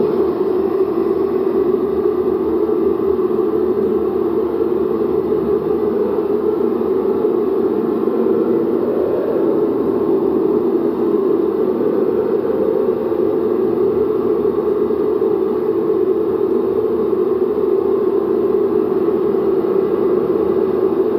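Steady, dense droning of room resonances: recorded speech played back into the room again and again until only the room's resonant frequencies remain, the words smeared into a continuous hum. It holds loud and even, with no breaks.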